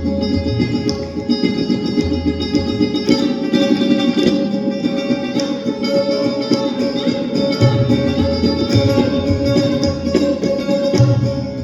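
Hindustani classical instrumental music: sitar and sarod play plucked melodic phrases with sliding notes over a steady drone, with deep tabla bass strokes.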